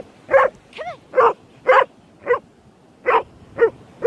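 Collie barking repeatedly in short, sharp barks, about two a second, with one higher yelp just before a second in and a brief pause near three seconds.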